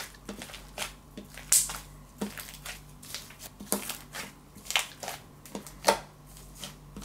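Hands kneading heat-softened pink slime worked through with hair mousse: irregular wet squelches and sticky clicks, about one or two a second, as the runny slime is pressed and folded to firm it up.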